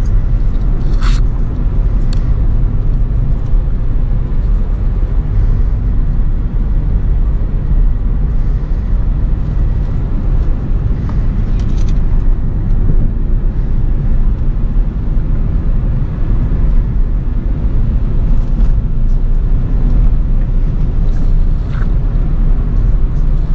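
Acura RSX driving, heard from inside the cabin: a steady low engine and road rumble, with a few faint clicks scattered through it.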